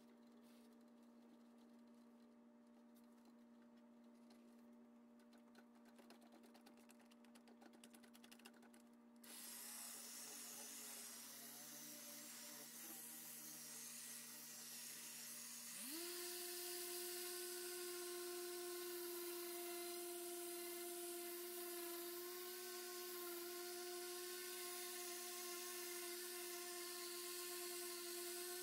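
Electric orbital polisher with a foam pad buffing a painted steel cowl panel. It starts about a third of the way in, running slowly, then steps up to a higher, steady whine about halfway through.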